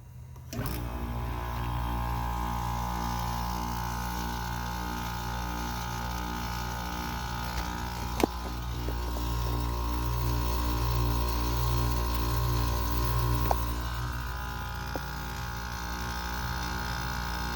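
Window air conditioner's R22 compressor kicking on from a cold start about half a second in, then running with a steady low hum that pulses and wavers. A single sharp click about eight seconds in.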